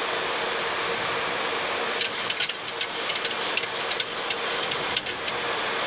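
Steady flight-deck noise of a Boeing 737 on final approach: airflow and air-conditioning hiss with a faint steady hum. About two seconds in, a run of irregular sharp clicks lasts around three seconds.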